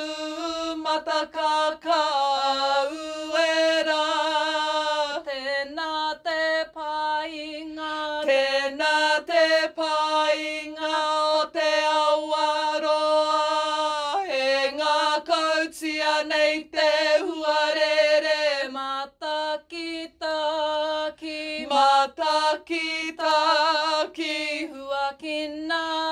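A chant in te reo Māori, sung unaccompanied in short phrases with brief breaks between them.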